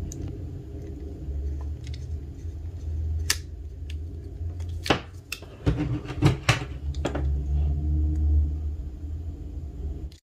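Small clicks and taps of a cutting bit being fitted into a Dremel rotary tool's collet and tightened with its collet wrench, the tool switched off, over a steady low rumble.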